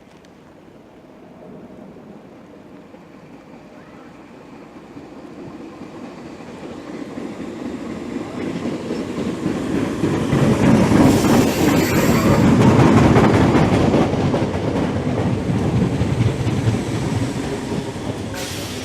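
Train running along the track, its wheels clattering over the rail joints. It grows louder to a peak about halfway through, then eases off a little but keeps running.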